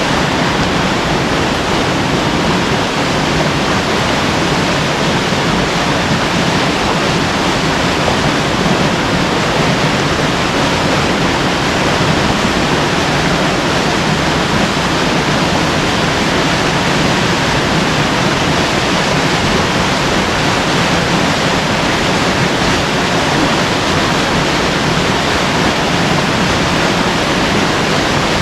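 Steady rush of creek water flowing fast over rocks, loud and unbroken.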